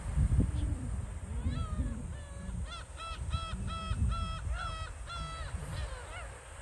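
A bird calling in a quick series of about a dozen short, evenly spaced notes, about three a second, which trail off near the end. There is a low rumble underneath, loudest just at the start.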